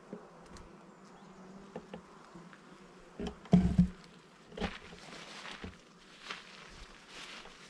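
Many bees buzzing steadily while foraging on globe thistle flowers, a continuous hum. A few sudden thumps or rustles come midway, the loudest about three and a half seconds in.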